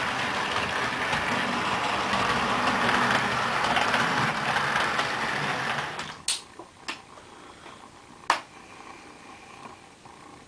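Model train running on the layout track: a steady mechanical rushing with a low hum that stops about six seconds in, followed by a few sharp clicks.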